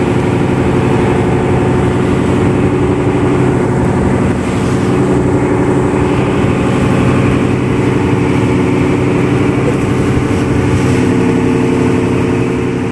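Fishing boat's engine running steadily under way, a continuous low drone with an even stack of overtones.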